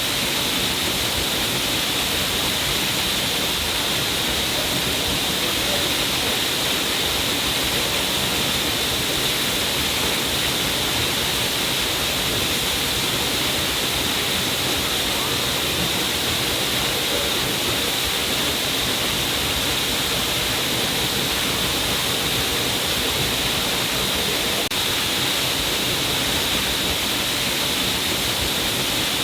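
Small stream of water falling down a cliff face: a steady, unbroken rushing hiss, brightest in the high range.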